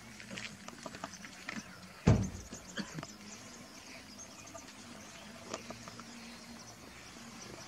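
Outdoor ambience with a faint steady hum and scattered small clicks, broken by one loud dull thump about two seconds in.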